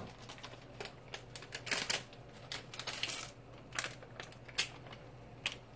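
Scattered light clicks and brief crinkles of plastic ramen seasoning sachets being handled and opened while dried vegetable flakes are put in to soak.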